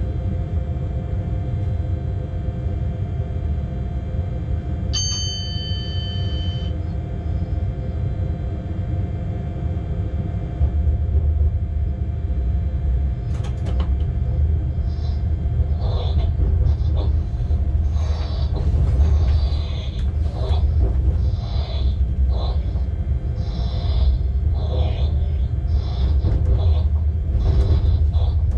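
Cab of a Class 186 TRAXX electric locomotive under way: a steady low rumble with level humming tones. About five seconds in, a short high electronic tone sounds for under two seconds. From about halfway the rumble grows louder, with irregular rattles and clatters.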